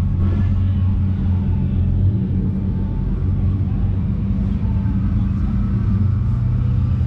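A car engine idling with a low, steady rumble; its pitch rises slightly about six seconds in.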